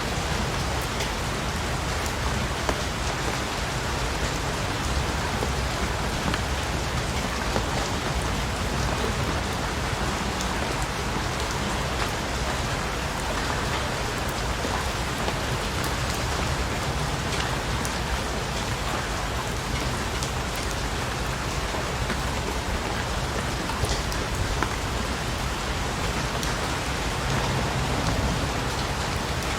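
Steady rain falling, an even hiss with many small drop taps on a surface.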